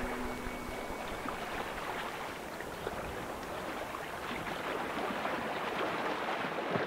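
Water running and splashing as a steady rush with many small splashes, under the last half second of fading background music.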